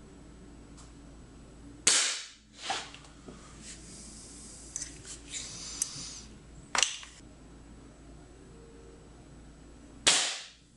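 Air rifle shots: sharp cracks about two seconds in, again near seven seconds and again near the end, the first followed a moment later by a smaller crack. These shots are fired without a suppressor, as a comparison for the same rifle with a homemade PVC suppressor.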